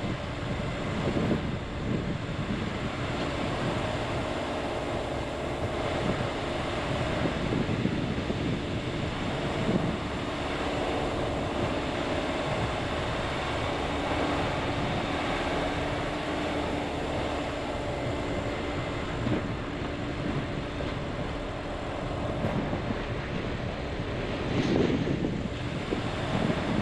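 Car driving on a dirt road: a steady engine hum under road and tyre noise, with wind buffeting, and a brief louder rush near the end.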